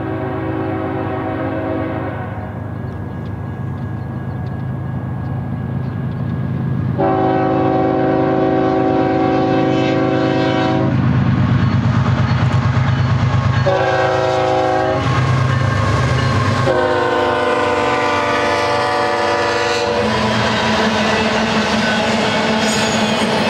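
GE ES44C4 diesel locomotives' multi-tone air horn sounding long, long, short, long over the steady drone of the engines: the signal sounded for a grade crossing. After about 20 seconds the locomotives have passed, and the double-stack container cars roll by with a steady wheel clatter.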